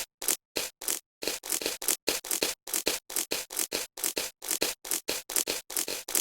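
Slime being squeezed and poked: a quick run of short crackly clicks and squelches, about four a second.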